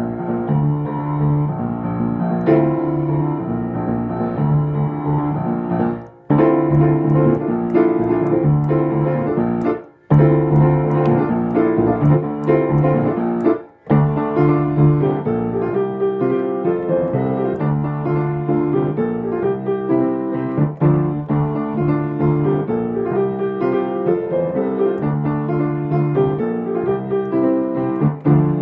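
Piano music playing, with three brief dropouts about six, ten and fourteen seconds in.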